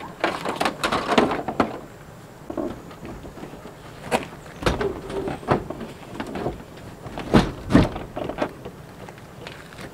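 Pop-up camper being set up by hand: irregular knocks, clunks and short scrapes of its parts being opened, slid and locked into place, with a heavier pair of thuds a little past seven seconds in.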